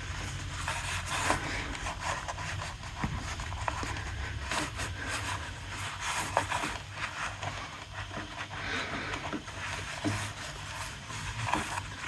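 Scattered scrapes, clicks and rustles of hands working, over a low steady hum.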